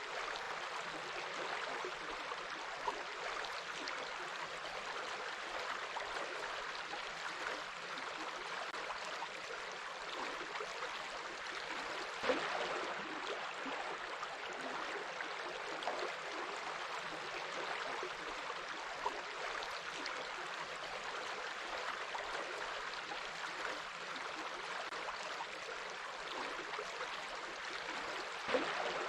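Water running steadily in a stream, with a few brief sharper sounds scattered through it.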